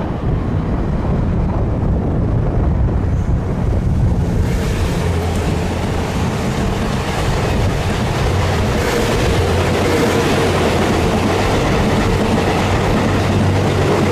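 Wind rumbling on the microphone, then from about four seconds in the growing rush of the Twilight Express Mizukaze, a JR West 87 series diesel-electric hybrid train, approaching, with a steady hum riding on it.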